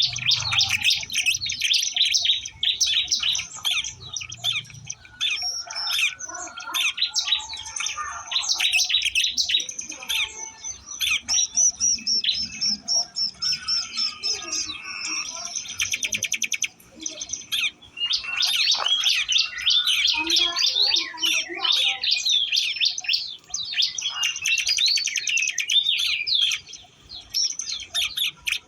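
Ciblek Lombok songbirds chirping and trilling rapidly and almost without pause, high-pitched.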